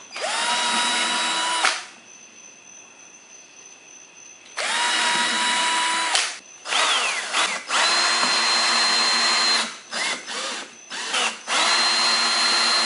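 Cordless drill running in four bursts of one and a half to three seconds, each spinning up to a steady whine, as it bores pilot holes and drives screws through a rubber tread strip into a plastic mower wheel.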